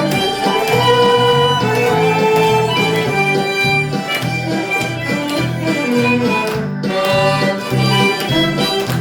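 Harmonica playing a slow melody in held notes over a steady, rhythmic accompaniment of low bass notes.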